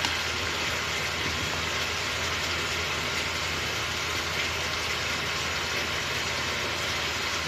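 Steady hiss with a low hum beneath it from the gas stove as a pot of chicken soup heats on the flame.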